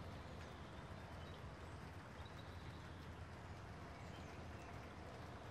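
Faint outdoor background ambience: a steady low rumble under an even hiss, with a few faint high chirps.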